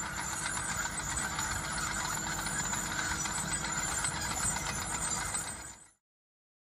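New Holland TK4050 crawler tractor's diesel engine running steadily as the tracked tractor drives along. The sound fades quickly and cuts to silence near the end.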